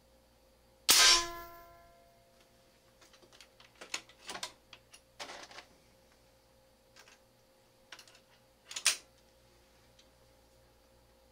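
A .357 big-bore PCP air rifle fires once about a second in: a sharp report with a metallic ring that fades over about a second. A run of clicks and clacks follows as the action is worked and reloaded, ending in a louder clack near the nine-second mark.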